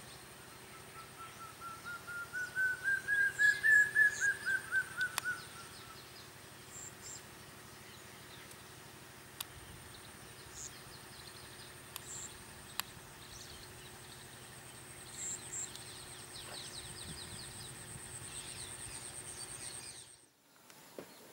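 Forest birds calling over a steady high insect drone. About a second in, one bird gives a fast run of repeated notes that climbs in pitch and loudness, then falls away, followed by scattered short chirps. The drone cuts off near the end.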